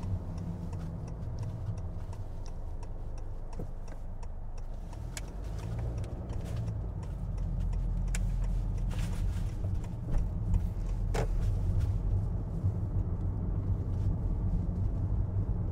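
A car driving on a road: steady engine and road rumble that grows louder about halfway through as the car picks up speed.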